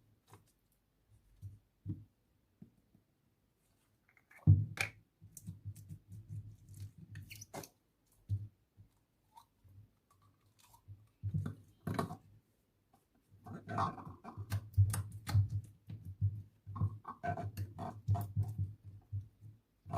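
Slime being squished and poked by hand: irregular wet squelches and sharp little pops in uneven bursts, sparse at first and busier in the second half.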